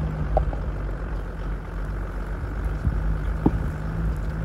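Car engine running with tyre and road noise, heard from inside the moving vehicle with its window open: a steady low hum.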